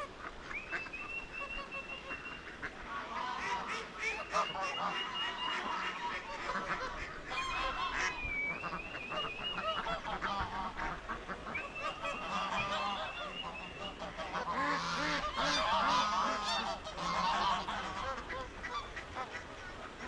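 Many waterfowl honking and calling over one another, some calls drawn out and high, with the densest and loudest cluster of calls about three quarters of the way through.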